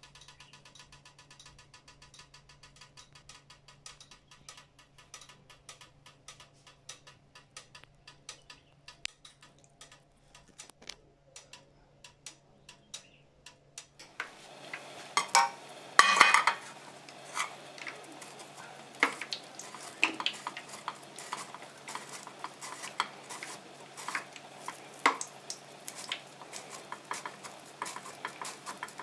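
Faint, fast, even ticking that thins out. About halfway it gives way to a peeled plantain being rubbed on a metal box grater over a plate: a rasping rub with irregular knocks of metal and plate, the loudest about two seconds after the change.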